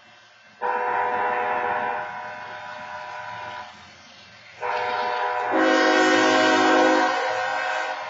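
BNSF locomotive air horn sounding two long blasts of the long-long-short-long grade-crossing warning. The first blast lasts about three seconds. After about a second's pause the second begins and grows louder and fuller about a second in.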